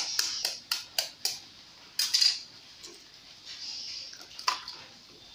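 An egg tapped about six times in quick succession against the rim of a stainless steel bowl to crack it, followed by a louder crunch of the shell about two seconds in and one more sharp tap later on.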